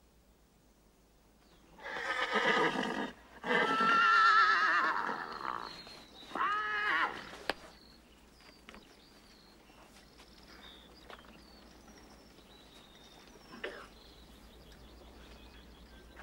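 A horse whinnying in three loud calls starting about two seconds in. The middle call is long and quavering, and the last is shorter, rising then falling in pitch. Faint scattered clicks follow.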